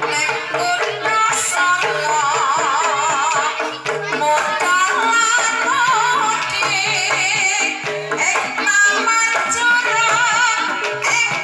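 Banyumasan gamelan music for tayub: a sinden (female singer) sings a wavering melody with vibrato over the sustained tones of the gamelan ensemble, with repeated hand-drum strokes.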